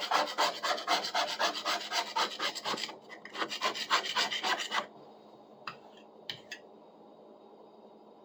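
Back edge of a knife scraping surface rust off a steel saw blade in rapid back-and-forth strokes, about five a second. The strokes stop about five seconds in, followed by two short scrapes.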